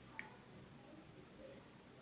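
Near silence: room tone, with one faint short click about a fifth of a second in.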